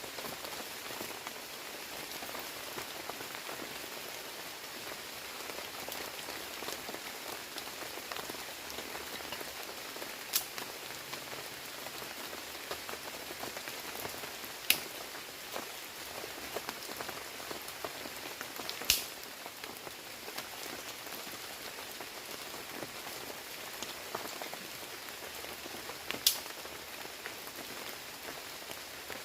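Steady heavy rain falling in a forest, an even patter with four sharp taps standing out over it.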